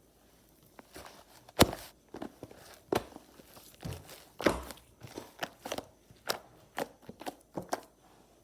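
Slime being squeezed and poked by hand, giving a string of irregular sharp clicks and crackles, the loudest about one and a half seconds in.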